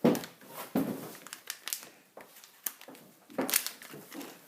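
Plastic blind-box packaging being handled, with uneven rustling, crinkling and a few sharper knocks. The loudest knock comes right at the start.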